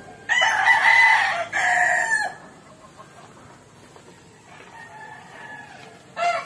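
A rooster crowing: one loud crow of about two seconds, a fainter crow a few seconds later, and another loud crow starting near the end.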